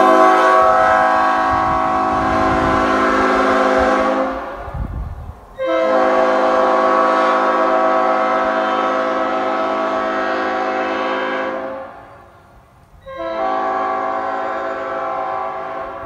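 3D-printed five-chime Nathan Airchime P5-style train horn (bells 0, 1, 2, 3 and 5) blowing on 120 psi air, a steady chord of several notes. There are three blasts: the first stops about four seconds in, the second is held for about six seconds, and the third starts near the end and carries on.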